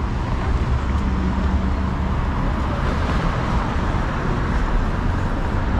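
City street traffic: a steady low rumble of motor vehicles, with a swell of noise about three seconds in as traffic goes by.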